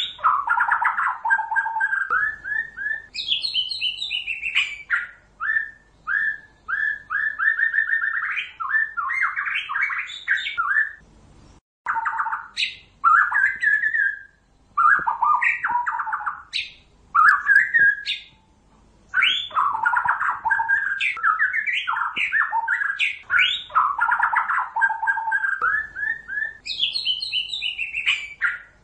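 White-rumped shama singing: a long, varied run of fluted whistles, quick trills and harsh chattering notes, broken by a few short pauses.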